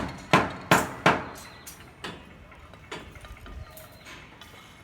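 Hammer blows: four quick, sharp strikes in about the first second, then two fainter knocks, falling quiet in the last couple of seconds.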